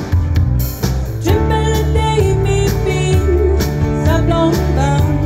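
Live band playing an upbeat song with electric bass guitar, keyboards and drum kit, and a lead voice singing from about a second in.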